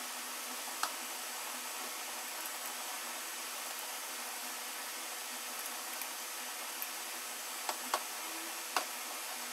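Steady background hiss with a few sharp metallic clicks, one about a second in and three close together near the end, from hand tools on the cylinder head bolts of a VW 1.4 TSI engine while they are tightened in angle stages.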